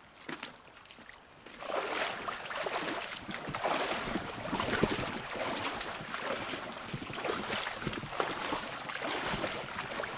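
Shallow stream water splashing and rushing close by, starting about two seconds in as a dense, crackling rush that carries on unbroken.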